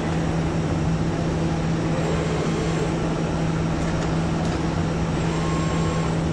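Steady hum and whir of automated assembly-line machinery, with a couple of faint clicks midway.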